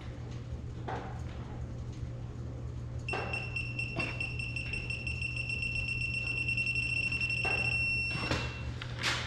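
Digital torque adapter on a breaker bar sounding one steady high-pitched beep for about five and a half seconds while a cylinder-head bolt is pulled up, the signal that the set torque is reached. A low steady hum runs underneath.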